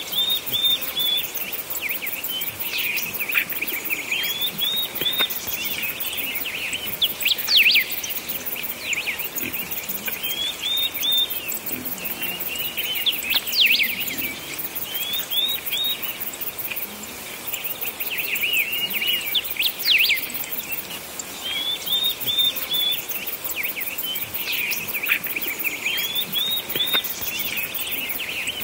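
Several small birds chirping and singing, with a short phrase of three or four quick notes repeating every few seconds among scattered chirps.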